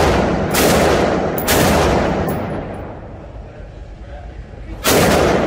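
Three handgun shots at a shooting range: two about a second apart, then a third after a pause of roughly three seconds, each followed by a long echoing decay.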